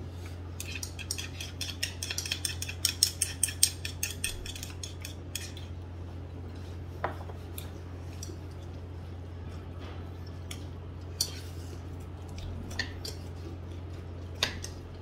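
Cutlery and dishes clinking at a meal table: a quick run of sharp clicks over the first few seconds, then occasional single clicks, over a steady low hum.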